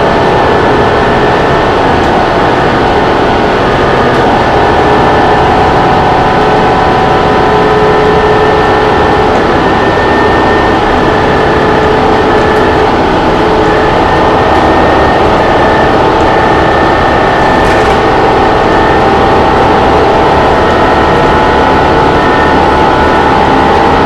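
Inside a 2011 New Flyer Xcelsior XD40 transit bus under way: its Cummins ISL9 inline-six diesel and Allison B400R6 automatic transmission running steadily with road rumble, carrying several held whining tones.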